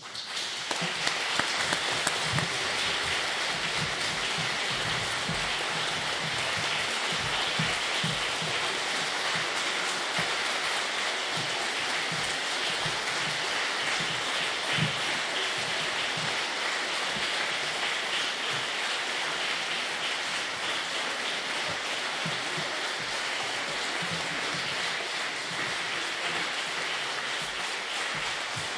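Audience applauding steadily: a long ovation.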